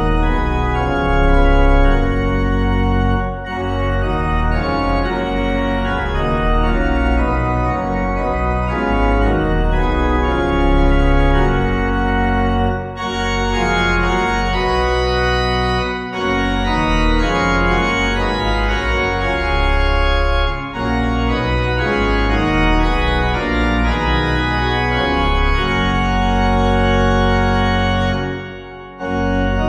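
Organ music: sustained chords played with a full, steady sound, briefly dropping away between phrases a few times and more deeply near the end.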